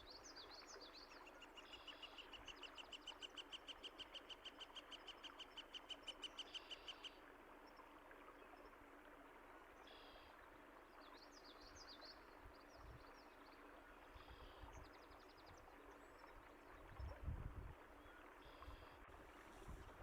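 Quiet running water with birds singing: one bird gives a long, fast trill of repeated notes, about six a second and growing louder, for around five seconds early on, and short chirps follow later. A low thud comes near the end.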